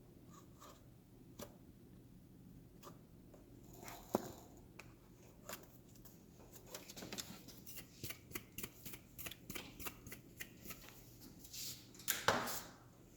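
Hands working in a foam-lined toolbox drawer: scattered light clicks, then a quick run of small clicks and rustles, and a louder scrape near the end.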